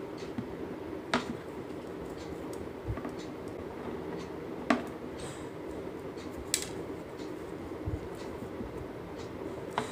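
Hand knitting with metal knitting needles and thick cord: a few light, sharp clicks of the needles, spaced a couple of seconds apart, over a steady low background hum.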